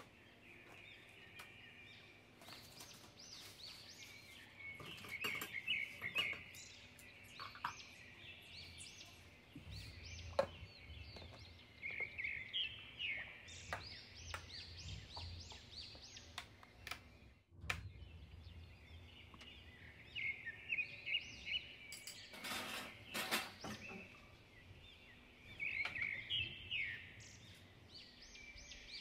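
Small birds chirping in repeated bursts of short, high, rising chirps every few seconds. Faint clicks and a brief rustle come from objects being handled.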